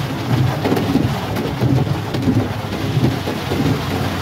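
Heavy rain drumming on a car's roof and windscreen, heard from inside the cabin as a dense, steady hiss. Low pulses recur about every second, as the windscreen wipers sweep.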